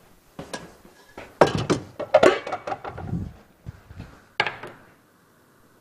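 Cookware being handled: a run of clanks and knocks of pots, a lid and a frying pan packed together in the middle, with a few single clicks before and after.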